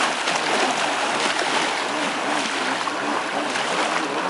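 Kawasaki X2 personal watercraft's two-stroke engine running at a distance, its pitch rising and falling in quick waves as the throttle comes on and off, over a steady hiss of water spray.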